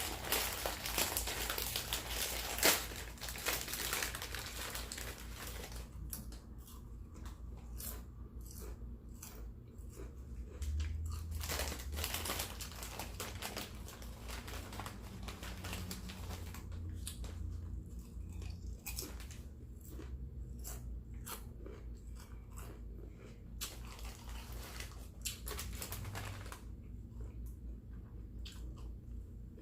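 Close-miked eating: a person biting and chewing food with crunching. The crunching is dense for about the first six seconds, then thins out into scattered crunches and clicks.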